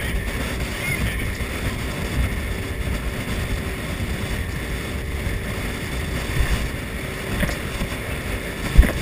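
Motorboat underway, its engine running steadily under rushing wind on the microphone and water noise against the hull, with one sharp thump near the end.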